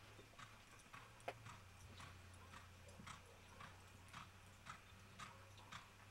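Faint hoofbeats of a ridden Quarter Horse mare jogging on arena dirt, soft even thuds about twice a second, over a low steady hum.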